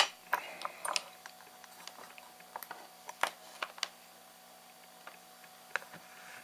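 Scattered small clicks and taps of objects being handled on a workbench, with a sharper click right at the start and a few spaced knocks after it.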